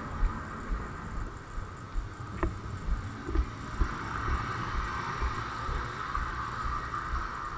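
Muffled thumps of footsteps and the jostling of a body-worn camera as the player walks, over a steady background hum. A single sharp click about two and a half seconds in.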